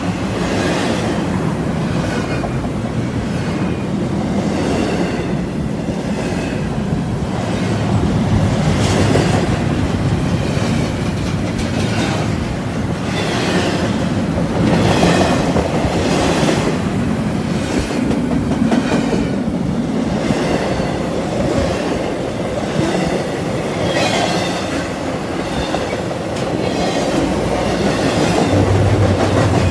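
CSX intermodal freight train's well cars and trailer flatcars rolling past close by: a steady, loud rumble of steel wheels on rail, with repeated clicks as the wheels cross rail joints.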